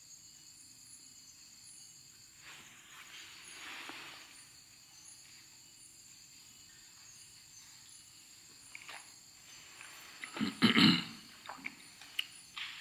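Night insects, crickets, trilling steadily at a high pitch, with a faint chirp repeating above them. A little before the end a few brief knocks and rustles rise above the trilling, the loudest sound here.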